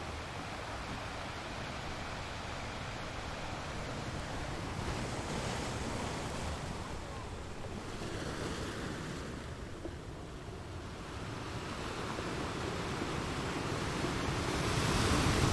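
Sound effect of water crashing on rocks: a steady rushing of falling water that swells louder near the end.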